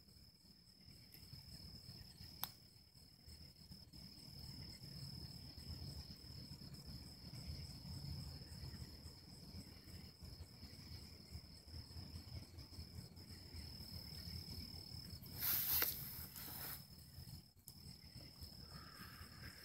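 Crickets trilling in one steady, high, continuous tone over a low background rumble, with a brief rustle about fifteen seconds in.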